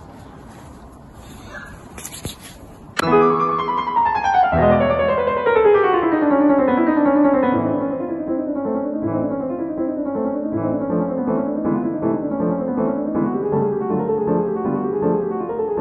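Piano music that comes in suddenly about three seconds in, opening with a falling run of notes and then settling into a repeating rocking figure. Before it there are only faint background sounds with a few clicks.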